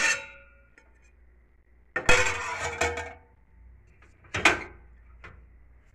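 Stainless steel utensils clattering: a steel plate lid and small steel bowl handled on a steel pot. There are sudden clanks with a metallic ring at the start, a longer clatter about two seconds in, another about four and a half seconds in, and a light tap near the end.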